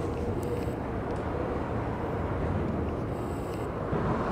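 Steady low rumble of outdoor city background noise, with a faint steady tone that fades out about a second and a half in.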